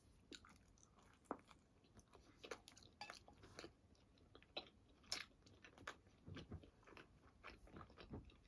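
A person chewing and biting into pizza: faint, irregular crunching and chewing clicks.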